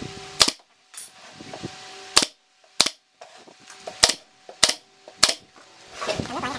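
SOYI pneumatic brad nailer firing six times, driving brads into a fibreboard speaker cabinet panel: sharp cracks spaced about half a second to a second and a half apart.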